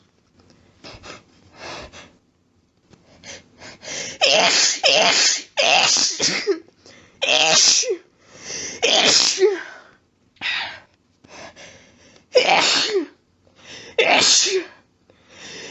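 A voice sneezing over and over in a rapid run, about ten loud sneezes roughly a second apart, each ending in a voiced sound that drops in pitch, with quieter breathy intakes between them.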